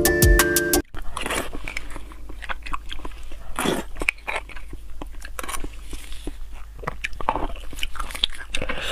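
Close-miked eating of beef bone marrow: many short biting, crunching and chewing sounds as the marrow is eaten from the spoon and from a roasted bone. A brief tone with a falling low sweep, under a second long, comes right at the start.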